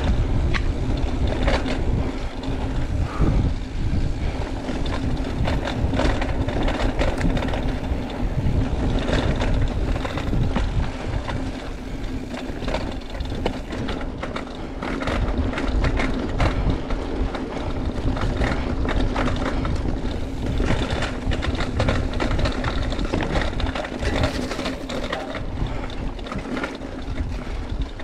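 Mountain bike riding along a dirt trail: wind buffeting the camera microphone over the tyres' rolling noise, with frequent clicks and rattles as the bike goes over bumps.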